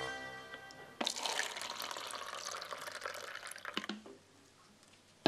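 Liquid poured from a stainless thermal carafe into a cup, starting about a second in and stopping about a second before the end. A sustained music note fades out in the first second.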